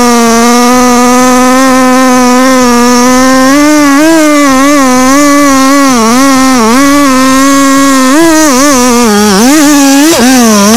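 Two-stroke chainsaw at full throttle cutting into the base of a hardwood trunk. The pitch holds steady for the first few seconds, then from about four seconds in it repeatedly dips and recovers as the chain bogs in the wood.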